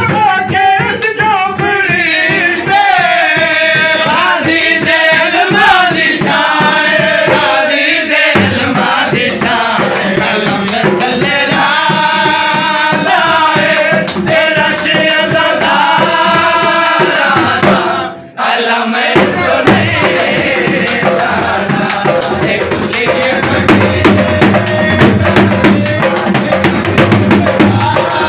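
A qaseeda sung to dhol drumming: a wavering devotional melody carried over a steady, dense drum rhythm. About two-thirds of the way through the sound dips suddenly for a moment, and then the drumming goes on with little clear singing.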